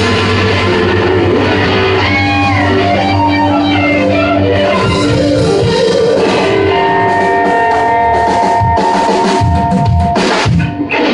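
A live band playing loud blues-rock: electric guitar over a drum kit, with a brief drop in level near the end.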